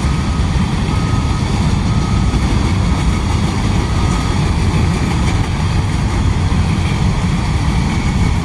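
Freight train passing close by: a loud, steady rumble of locomotives and wheels on the rails, with no horn. A faint thin whine sits over it in the first few seconds.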